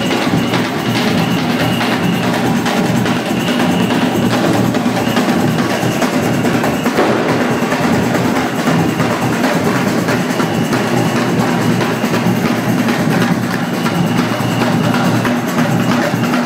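Drums played loudly in a fast, unbroken rhythm of dense strikes.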